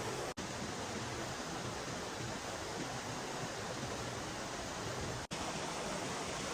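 Steady rushing noise that cuts out for an instant twice: about a third of a second in and again about five seconds in.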